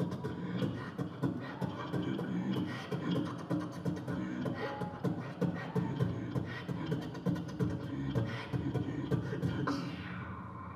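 Beatboxing into a handheld microphone: a fast rhythmic run of mouth clicks and low kicks, thinning out and quieter near the end.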